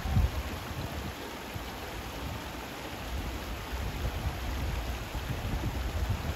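Shallow rocky stream running over stones, a steady rush of water, with a low rumble that comes and goes, strongest at the start and again near the end.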